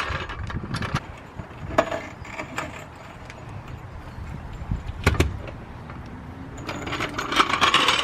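A car being lowered off jack stands with a floor jack: a few metallic clanks and knocks, the loudest with a low thump about five seconds in.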